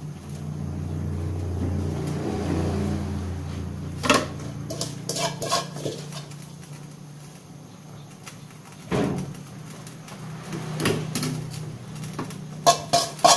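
Metal ladle knocking and scraping against a cooking pan as leafy greens are stirred, in scattered clinks about a second or two apart. For the first four seconds a steady low drone runs underneath, then fades.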